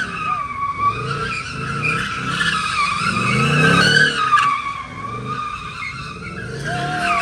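A vehicle doing a burnout: tyres screeching with a wavering pitch while the engine revs up again and again.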